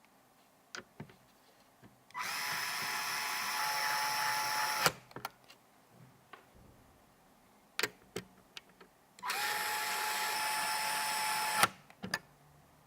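Small electric screwdriver running in two steady bursts of about two and a half seconds each, each ending in a sharp click, with light clicks and taps of parts being handled between.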